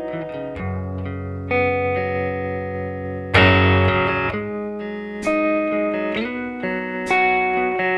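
Instrumental background music led by plucked guitar, notes changing every second or so with a strong struck chord about three and a half seconds in.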